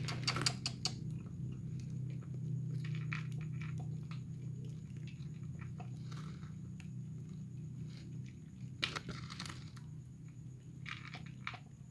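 Two cats chewing dry kibble: a run of irregular small crunches, some closer together, others spaced out. A steady low hum runs underneath.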